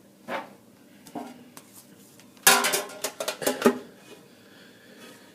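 Metal card tin clanking and rattling as it is handled, with a few light knocks and then a burst of clatter about two and a half seconds in.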